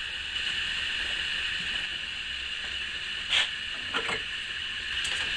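Steady background hiss, with two faint short taps a little over three and four seconds in.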